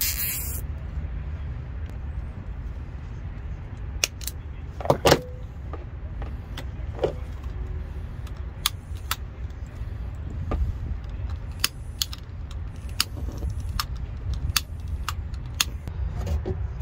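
Scattered small clicks and clinks of hands working electrical wires and connectors, the loudest cluster about five seconds in, over a steady low background rumble.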